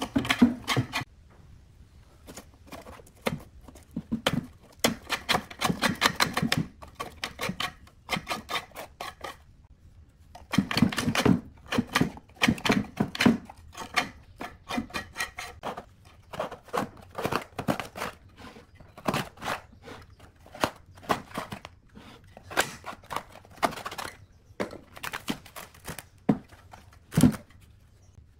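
A utility knife blade scraping and cutting at the old paper cone and glued surround of a subwoofer, with the cone material cracking and tearing away from the frame in many short, rapid strokes. Two spells of busier scraping come in between sparser strokes.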